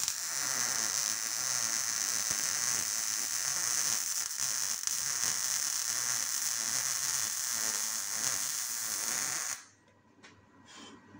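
Welding arc crackling steadily as a new 25 mm square steel box section is stitch-welded into a rusted van door channel. It is one long run that cuts off about nine and a half seconds in, followed by a few faint clicks.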